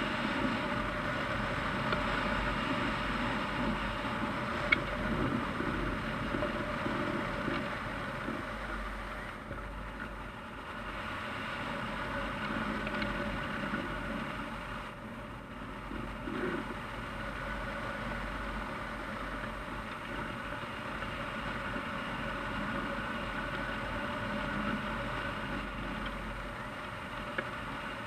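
Steady rush of air over a hang glider in flight, picked up as wind noise on a camera mounted on the glider's frame. A single sharp tick sounds about five seconds in.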